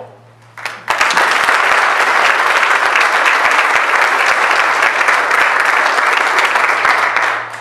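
Small audience applauding, starting about a second in, holding steady and dying away near the end.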